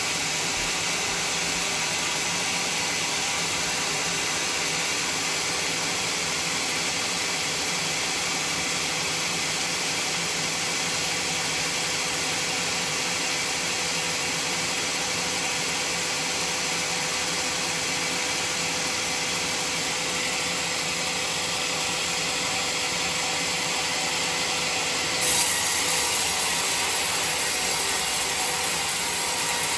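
A band sawmill blade cutting through a jowar log with a steady, hissing saw noise. Near the end it becomes louder and higher-pitched.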